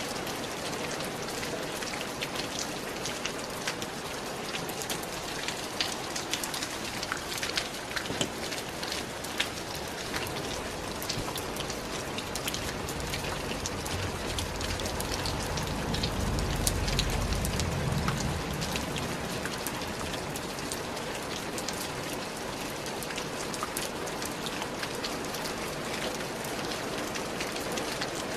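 Steady rain falling, a constant hiss with many sharp individual drop hits. A low rumble swells under it for a few seconds around the middle.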